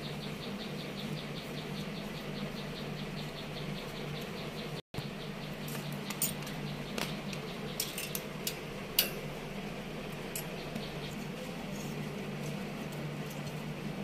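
Hand tools and fittings clicking and tapping against copper refrigerant tubing over a steady low hum. A fast, even ticking runs through the first few seconds, and a handful of sharp metal clicks come later.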